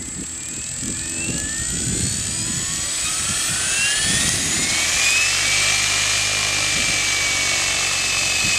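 Large electric RC helicopter (Align T-Rex 700E stretched to 800 size, 820 mm carbon blades) spooling up on the ground. The motor and gear whine rises in pitch and grows louder for about five seconds, then holds steady as the rotor comes up to speed, with the swish of the main blades underneath.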